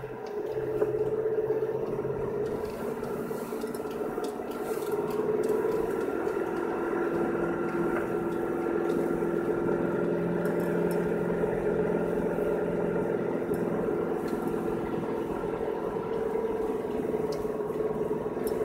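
Car engine and drive running, heard from inside the cabin while driving slowly on a snowy road: a steady hum whose pitch dips slightly for the middle stretch and comes back up near the end.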